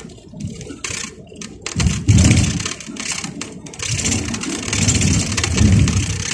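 Road and engine noise of a moving vehicle heard from inside the cab, an uneven low rumble with rattling hiss that swells and dips.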